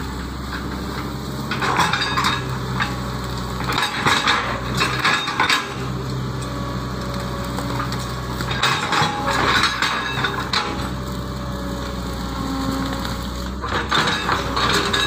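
Excavator diesel engine running steadily, with several bursts of crunching and clattering as the machine works.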